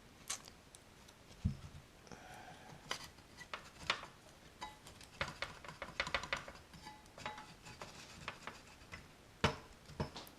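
Irregular clicks, taps and light knocks of hands working at a Bremi BRL200 amplifier's chassis and circuit board while trying to free the board, with a dull thump about a second and a half in and a sharper knock near the end.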